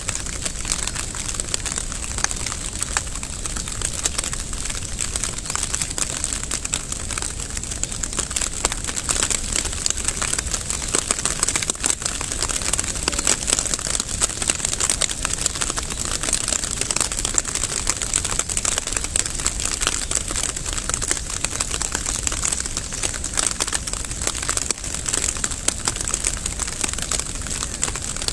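Steady rain falling, heard as an even hiss made of many small drop hits.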